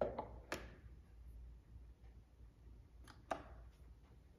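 Wayne's Audio WS-2 metal record clamp being seated over a Technics SL-1200 turntable spindle: a few light metallic clicks and knocks in the first half second, then two more sharp clicks about three seconds in.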